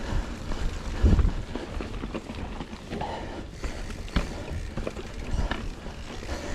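Mountain bike riding over a rough dirt trail, with rattle from the bike, several sharp knocks from bumps (the loudest about a second in) and wind buffeting the microphone.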